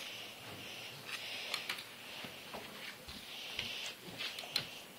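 Quiet room with a faint hiss and a few scattered small clicks and taps.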